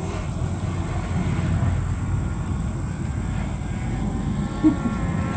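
Wind rumbling on the microphone, with the faint whine of the Parrot Disco flying wing's electric propeller motor coming in about four seconds in.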